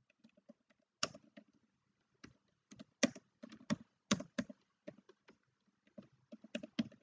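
Typing on a computer keyboard: a run of separate keystrokes at an uneven pace, with a few keys struck noticeably harder than the others.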